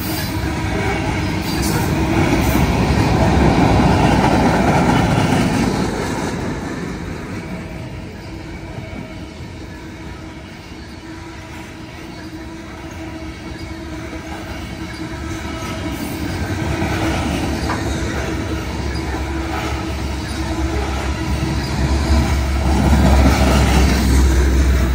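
Covered hopper cars of a BNSF grain train rolling past close by: steel wheels rumbling and clacking over the rails, with a thin, steady wheel squeal running through it. The sound is louder for the first few seconds and again near the end, easing off in the middle.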